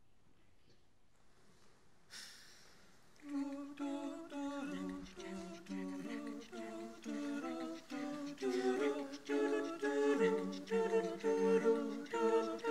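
A cappella vocal sextet humming a wordless introduction in close harmony, the chords shifting about every half second over a sung bass line. It begins about three seconds in, after a quiet start and a brief hiss, and grows louder toward the end.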